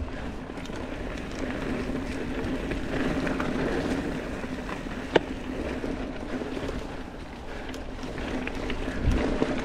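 Mountain bike riding fast down a dirt singletrack: steady tyre and trail noise with a low hum running through it, and a single sharp knock about five seconds in.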